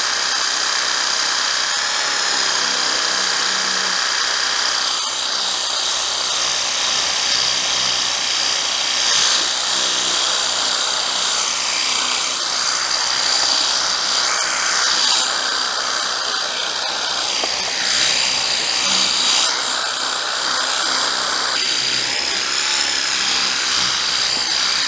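Draper D20 cordless portable pressure washer running: its battery-powered pump gives a steady high whine. A thin jet of water hisses against a car's bodywork, and the hiss shifts as the jet moves.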